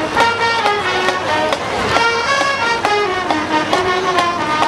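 Marching band playing: a brass-led melody of held, stepping notes over a steady drum beat.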